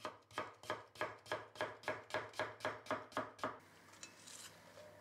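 Kitchen knife chopping cucumber on a wooden cutting board: a steady run of about a dozen chops, roughly three a second, stopping about three and a half seconds in. Then soft rustling as the cut cucumber is dropped into a glass bowl of shredded cabbage.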